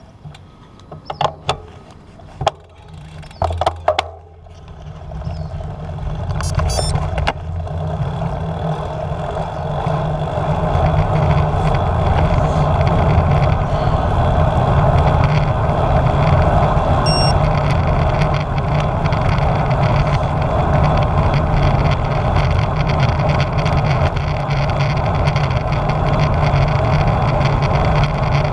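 Wind and road noise on a GoPro mounted on a road bike, rising over several seconds as the bike picks up speed and then holding steady and loud. A few short, sharp sounds come in the first few seconds.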